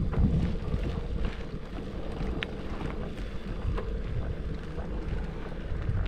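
Wind on the microphone of a moving bicycle: a steady low rumble, with a few faint ticks scattered through it.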